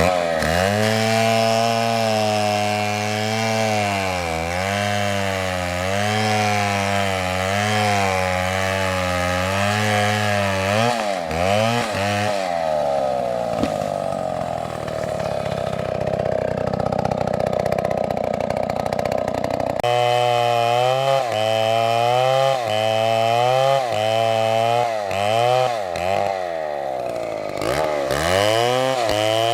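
Chainsaw running at high revs while cutting wood, its engine pitch dipping under load and picking up again over and over. About twenty seconds in, the sound switches abruptly to another saw cutting at a slightly different pitch.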